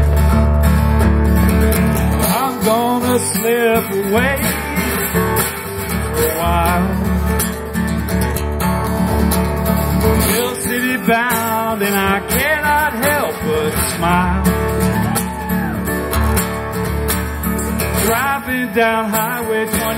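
Steel-string acoustic guitar strummed steadily with a man singing over it in phrases, a live folk/country song.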